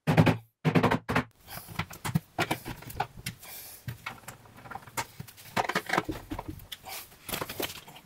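Irregular knocks and clacks of melamine-faced fibreboard wardrobe panels being handled and pressed together, some sharp and loud, others small taps.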